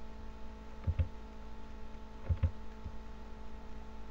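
Computer mouse clicks, heard as two pairs of short, dull taps (press and release) about a second in and again about two and a half seconds in, over a steady electrical hum.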